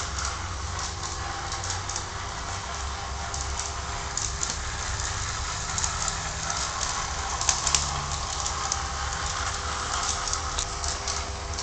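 Lionel 2338 GP7 O-gauge model diesel locomotive running steadily around three-rail tubular track: a constant motor hum and gear whir with irregular clicks and rattles from the wheels on the track, two louder clicks about three-quarters of the way through. The locomotive has just been cleaned, oiled and greased and runs smoothly on low voltage.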